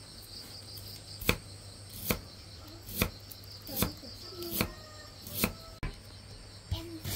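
Knife chopping on a cutting board, single sharp strokes at a steady pace of about one a second.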